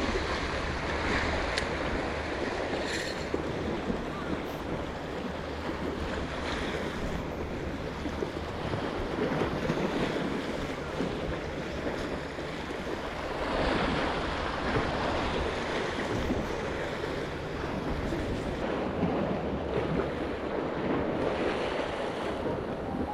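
Sea waves washing against a rocky shore, with wind buffeting the microphone. The surge swells louder about two-thirds of the way through, then eases.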